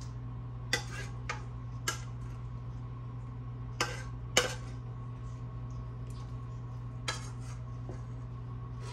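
A metal serving utensil clinking against a pot and dishes as grits are dished out: about six sharp clinks at uneven intervals, the loudest about four and a half seconds in, over a steady low hum.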